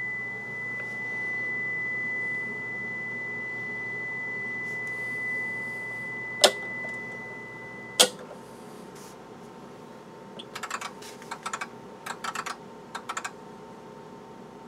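Steady high test tone from the audio generator, played through the valve amplifier's speakers with a low hum under it. A sharp click comes about six and a half seconds in, and the tone and hum stop with another click about eight seconds in. Near the end comes a run of quick clicks and taps.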